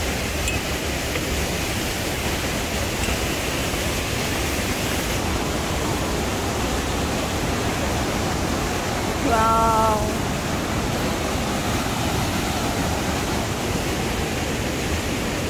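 Steady rushing of the Hogenakkal waterfall and the Kaveri river below it. About nine seconds in, a short pitched call briefly rises above the rush.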